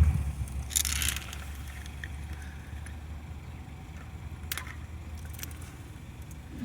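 Zip ties being undone on the compressor's bundled cables and hose: a short rustle about a second in and a few light clicks, over a low steady rumble.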